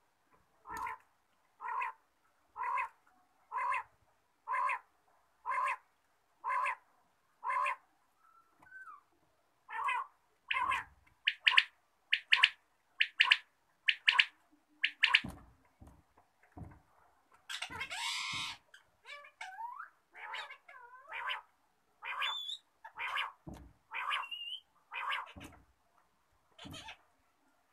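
Quail calling over and over: a short call about once a second for several seconds, then louder, quicker calls. A brief rustling burst comes about two-thirds of the way through, and more calls follow.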